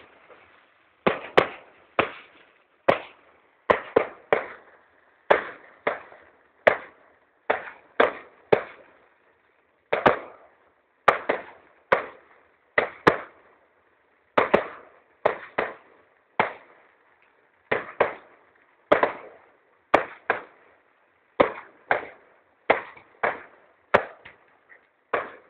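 Fireworks bursting in a string of sharp bangs, one to two a second and sometimes in quick pairs, each dying away quickly, with one short pause about halfway through.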